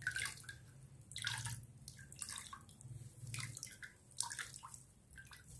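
Milky liquid dripping and splashing in a bowl as a wet cloth bundle of ground almond-and-seed paste is squeezed by hand, in short irregular splashes.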